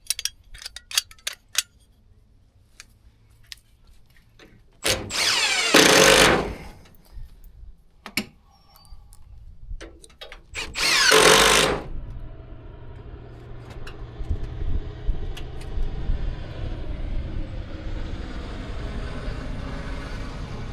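Power drill boring two holes in a wooden barn door: two loud bursts of a second or so each, about five seconds apart, after a few clicks of handling. From about halfway on, a steady low rumble builds underneath.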